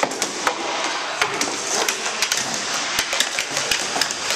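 Many irregular sharp clacks of floor hockey sticks hitting each other, the ball and the hardwood gym floor during a scramble for the ball, over steady background noise.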